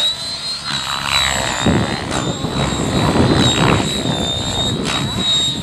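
Radio-controlled model helicopter flying past, giving a steady high-pitched whine that wavers slightly in pitch, over an uneven low rumble.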